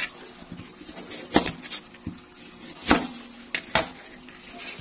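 A few sharp knocks as peeled taro is cut into chunks on a plastic cutting board. The two loudest come about a second and a half apart, with lighter taps after them.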